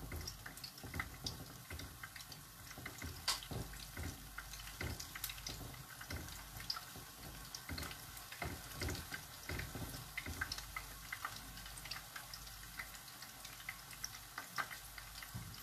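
Sweet potato fritters deep-frying in oil: faint, irregular crackling and ticking over a soft hiss.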